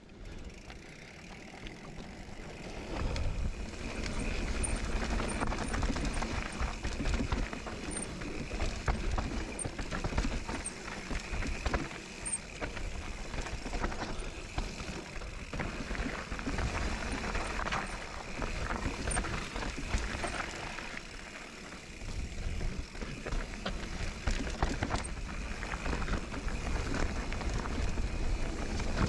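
Kona Process 153 mountain bike ridden along dirt singletrack: tyres rolling over dirt and roots, with the chain and frame rattling. It is quieter for the first couple of seconds, then rides on steadily with a brief lull about three quarters of the way through.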